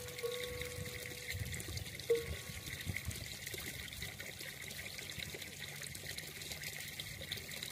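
Water pouring and trickling steadily into a stone water trough while a camel drinks from it, with soft low gulping sounds in the first few seconds. A faint steady tone sounds for about two seconds near the start.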